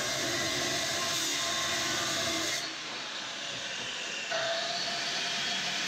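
Angle grinder grinding the 10 mm steel of a narrowboat's engine beds: a steady grinding noise with a faint whine in it. It drops a little about two and a half seconds in and comes back stronger with a clearer whine a couple of seconds later.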